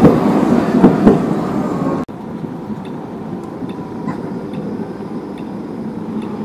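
Tram passing close by, a loud low rumble of its running gear with a few knocks from the wheels on the track. About two seconds in, this gives way to quieter steady street background as another tram approaches slowly from a distance.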